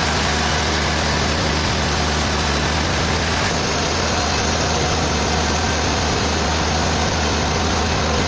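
An engine running steadily: a loud, even noise over a low hum.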